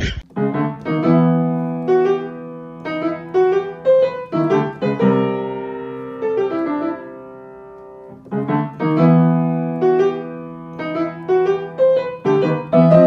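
Background piano music: a short melody of struck notes over held low notes, which starts over about eight seconds in.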